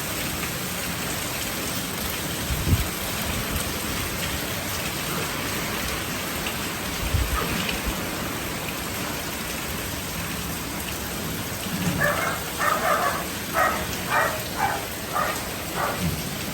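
Steady rain falling throughout, with a couple of brief low thumps in the first half. In the last few seconds a dog barks about eight times in quick succession.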